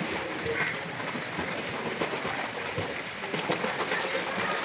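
Swimmer's flutter kick steadily splashing and churning the water.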